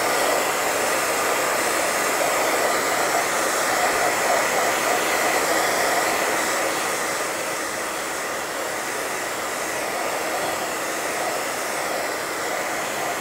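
Hand-held hair dryer blowing steadily over a freshly glued decoupage piece to dry it, an even rush of air with a faint steady whine.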